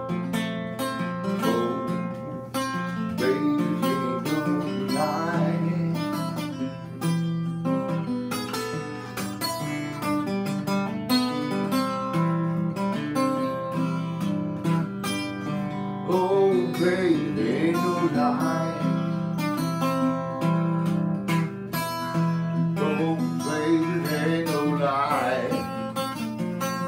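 Acoustic guitar picked in a country blues style: an instrumental break of melody over a steady bass line between sung verses.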